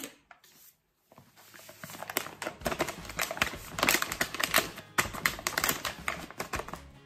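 White paper flour bag crinkling and rustling as it is shaken out over a plastic bowl, a dense run of rapid crackles that starts about a second in.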